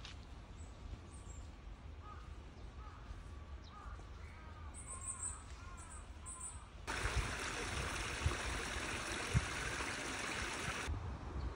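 Birds calling faintly for the first several seconds. About seven seconds in, the steady rush of water pouring through a small stone sluice into a pond cuts in as the loudest sound, and it stops abruptly about a second before the end.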